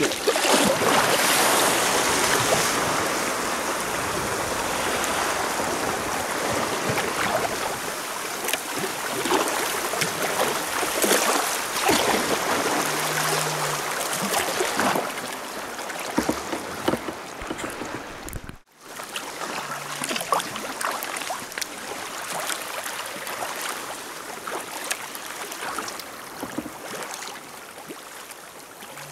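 Water splashing and rushing along a sea kayak's hull as it is paddled, with the splash of paddle strokes dipping in. The sound breaks off abruptly about two-thirds of the way through and resumes a little quieter.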